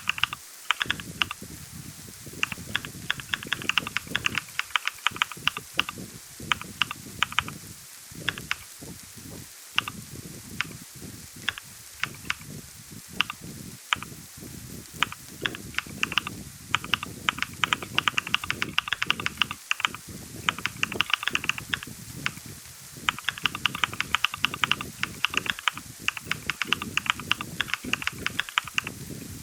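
Typing on a computer keyboard: fast runs of sharp key clicks broken by short pauses.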